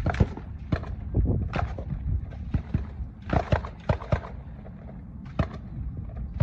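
Irregular sharp cracks and knocks, sometimes several in quick succession, over a continuous low rumble.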